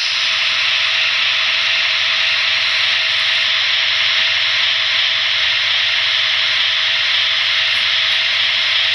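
Trix model of the SBB Ce 6/8 II 'Crocodile' electric locomotive running with its digital sound on: a steady hiss with a faint low hum underneath.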